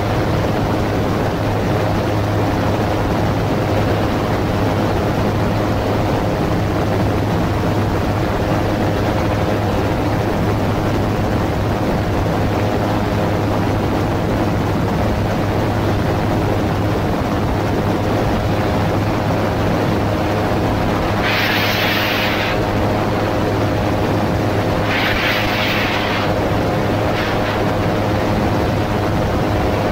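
AutoGyro MTOsport gyroplane in cruising flight: steady engine and pusher-propeller drone under rushing wind noise. A few short bursts of hiss come in about two-thirds of the way through and again near the end.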